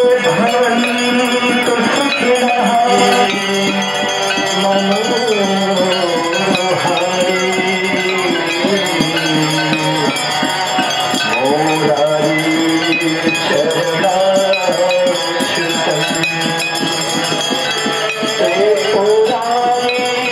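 Hindu devotional music of the Ganga aarti: a wavering melody over a steady drone, with hand bells and rattles jingling throughout.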